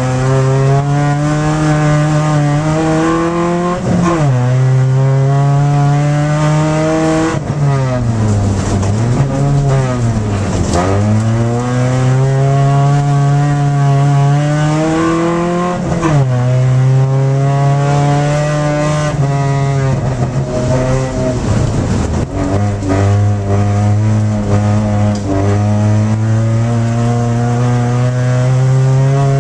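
Race car engine heard from inside the cabin, working hard during an ice sprint race. Its pitch climbs and falls back at each gear change, and in the middle it rises and falls repeatedly as the throttle is lifted and reapplied through the turns.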